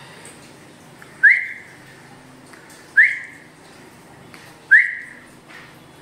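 Ring-necked parakeet giving three short whistled calls, evenly spaced about every second and a half to two seconds, each a quick upward swoop that fades off.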